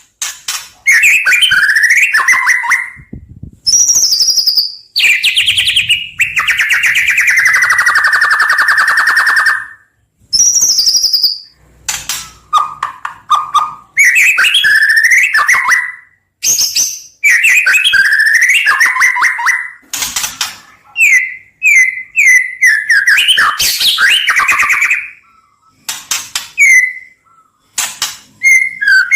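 White-rumped shama (murai batu) singing a varied run of loud whistled phrases with short pauses between them. About a third of the way through comes one long held note of about four seconds, and a few phrases have sharp high notes.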